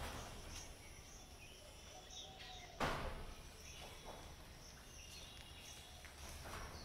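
One sudden thump about three seconds in, fading over about half a second, over faint outdoor background with scattered bird chirps.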